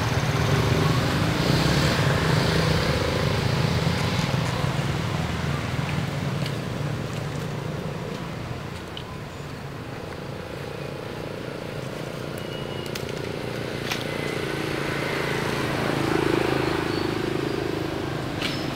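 A motor vehicle's engine running with a steady low hum, fading over the first half and growing louder again near the end.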